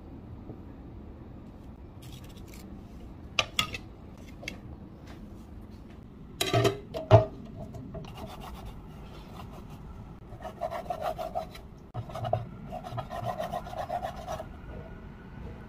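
Meat cleaver cutting raw pork on a wooden chopping board: a few sharp knocks of the blade and board, then runs of quick back-and-forth slicing strokes rasping against the wood in the second half.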